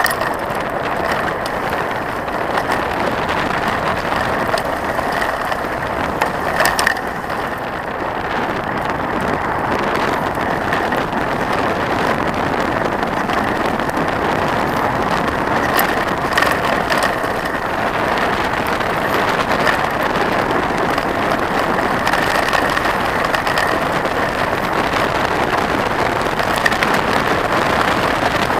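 Trek 4900 mountain bike rolling down a gravel road: a steady crunch of the tyres on gravel with the bike rattling, and a few sharp knocks over bumps.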